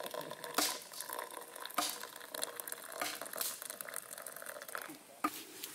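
Food cooking in a pan or pot, with a steady sizzling, bubbling hiss and four sharp knocks of a utensil against the cookware, about a second apart.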